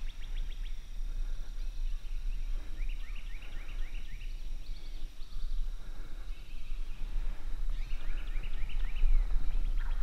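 Birds calling in the woods: several series of short, quick chirps, thickest about three seconds in and again near the end, over a steady low rumble.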